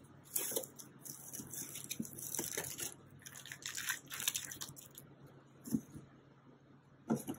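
Cardboard shipping box being opened by hand: tape tearing and flaps scraping and rustling in rough bursts, then a couple of light knocks near the end.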